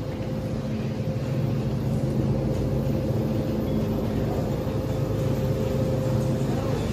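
Steady low hum of open refrigerated display cases, their fans and compressors running, with a few held tones; it grows slightly louder about two seconds in.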